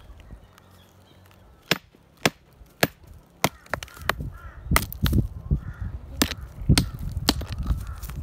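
A hammer striking a bauxite rock outcrop: about ten sharp, irregularly spaced knocks, beginning a little under two seconds in.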